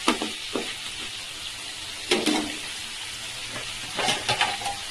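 Chopped onions, tomatoes and drumstick pieces sizzling in hot oil in a metal pan, with a spoon stirring and scraping through them a few times.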